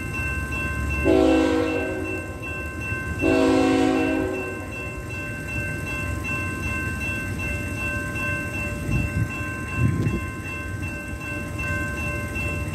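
Train horn sounding two blasts of about a second each, the first about a second in and the second about two seconds later, over the steady ringing of a grade-crossing bell and the low rumble of an approaching train.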